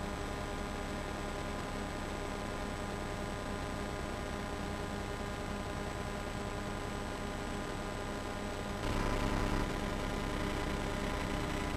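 Steady hiss and electrical hum with no distinct event. The hiss gets louder about nine seconds in.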